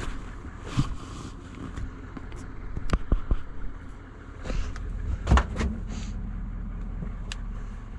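A few sharp knocks and clicks of handling around a pickup truck, the loudest pair about five seconds in, over a steady low rumble.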